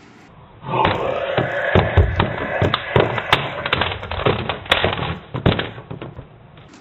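A quick, irregular run of knocks and thuds over a dense noisy bed, starting about a second in and dying away near the end.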